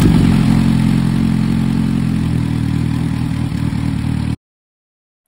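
A motorcycle engine running steadily, loud and low-pitched, cut off abruptly a little over four seconds in.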